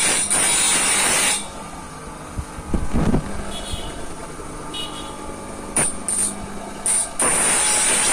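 Saw file rasping across the teeth of a handsaw with a hissing, high-pitched screech. It files steadily at first, pauses with a dull knock and three short strokes, then files steadily again near the end.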